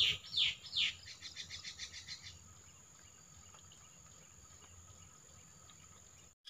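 A bird calling: three quick downward-sliding whistles, then a fast run of short notes for a little over a second. Under it is a faint steady high-pitched insect drone, which is all that remains from about two and a half seconds in.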